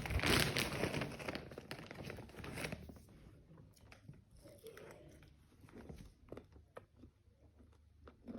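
Rustling and crinkling, loudest in the first three seconds, then dying down to scattered small clicks and taps.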